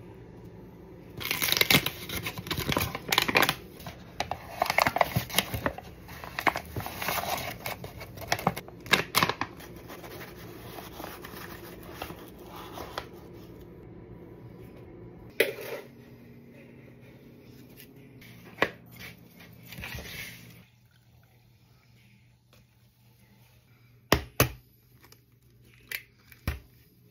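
Paper flour bag crinkling and rustling as flour is scooped and poured into a plastic mixing bowl, in busy spells that thin out after about fifteen seconds. Near the end, a few sharp knocks as eggs are cracked against the bowl.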